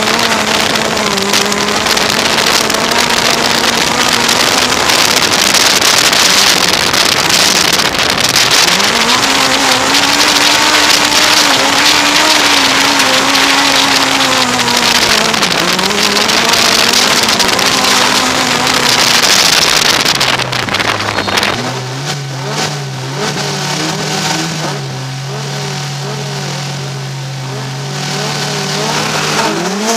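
Autocross car engine heard from inside the cabin, revving up and down repeatedly as the car races over the dirt, with a loud rushing noise over it. About 20 seconds in the noise drops away and the engine settles to a steady low idle, then revs rise again at the very end.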